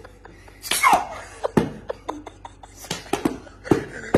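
Men laughing in short, loud outbursts, the strongest about a second in, with further bursts near the middle and near the end.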